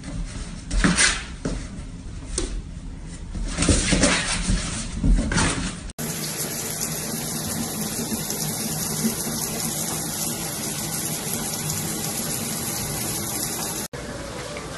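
Water running steadily from a shower behind a shower curtain, an even hiss of falling water lasting about eight seconds. Before it come a few seconds of irregular bumps and rustling.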